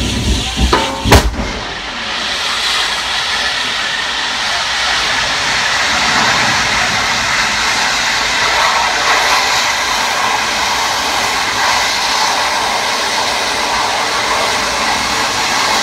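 A sharp bang about a second in, then a burning garbage truck flaring into a tall jet of flame: a steady, loud rushing hiss that holds on without a break.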